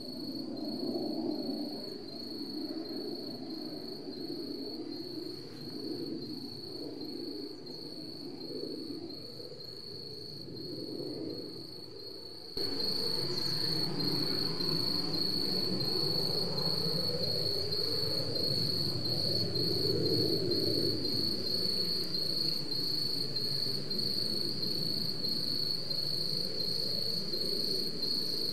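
Insects chirring in a steady, fast-pulsing high trill, with a soft low wavering sound beneath. About twelve seconds in, the whole sound steps up abruptly louder and stays there.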